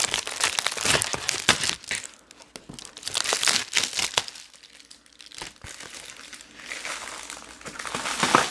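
Plastic mailer bag crinkling and rustling in bursts as it is cut open with scissors and handled, with a quieter stretch in the middle and a sharp click near the end.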